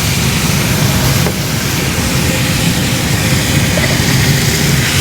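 Marinated steak sizzling on a very hot flat-top griddle: a loud, steady hiss, with a low rumble underneath.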